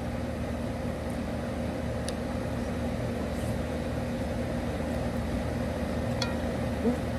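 Air conditioner unit running with a steady electric hum, with a few faint ticks over it.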